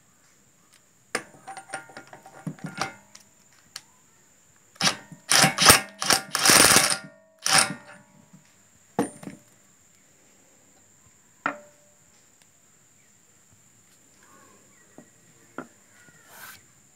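Bosch GDS 18V-400 cordless impact wrench hammering on the hub nut of a CV axle. It runs in several bursts: a cluster about a second in, the longest and loudest runs about five to eight seconds in, then a few short trigger blips.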